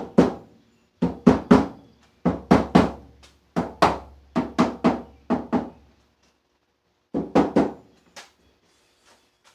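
A hammer tapping a new rubber outer window seal down onto the door of a Nissan D21 Hardbody pickup: quick bursts of three to six sharp taps with a short metallic ring. There is a pause of about a second after six seconds, then a final burst.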